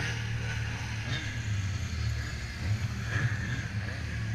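Yamaha Viper XTX snowmobile's engine running steadily under way, heard from on board, mixed with track and wind noise.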